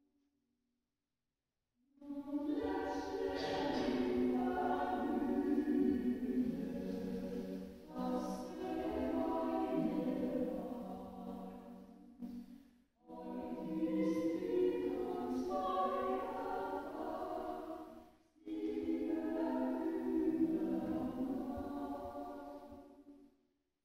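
A choir singing in church, starting after about two seconds of silence and going on in several phrases with short pauses between them.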